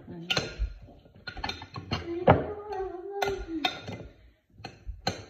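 Irregular clicks, taps and clinks of kitchen utensils, bottles and a glass dish as a cucumber salad is seasoned, with a short wordless hummed voice in the middle.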